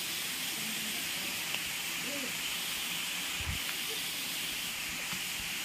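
Steady rushing hiss of a small waterfall, with faint distant voices.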